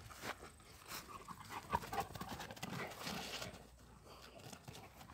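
Central Asian Shepherd dogs (Alabai) playing, heard faintly as breathing and scuffling on grass.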